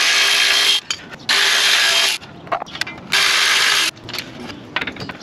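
A power tool running out the already loosened 16 mm ball-joint bolts in three short bursts, followed by a few light clicks.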